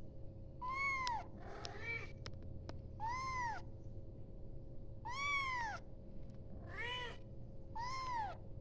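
Young kitten meowing again and again, about six high calls that each rise and fall in pitch, a second or two apart: a kitten calling for its mother.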